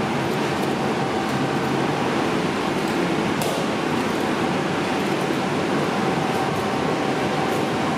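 Steady droning hum of room machinery, such as ventilation or cooling, in a meat-cutting room, with a faint high tick about three and a half seconds in.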